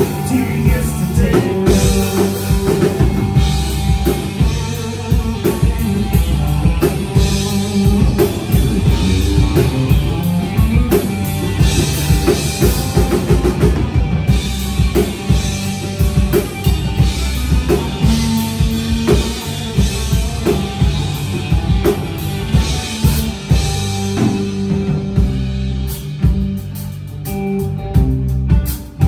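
Live country-rock band playing a Red Dirt country song, with the drum kit keeping a steady beat under the bass and guitars. The band drops back briefly a few seconds before the end.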